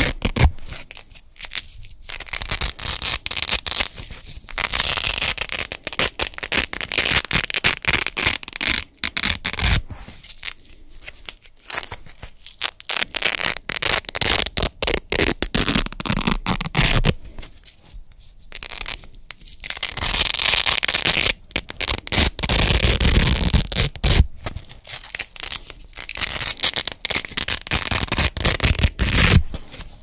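Velcro hook-and-loop pads being pressed together and peeled apart close to the microphone: a crisp, crunchy crackling tear, repeated in bursts of one to a few seconds with short pauses between.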